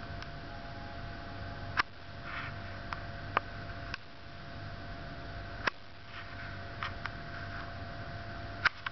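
Steady low ambient hum broken by a few scattered sharp clicks, four or five in all at uneven intervals.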